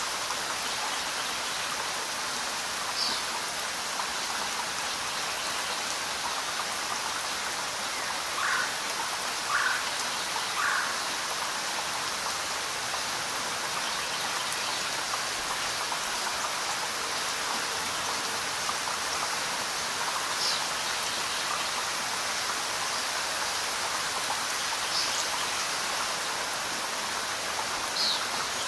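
Steady rain falling, a dense even hiss. A few short, louder plinks stand out now and then, three close together about nine seconds in.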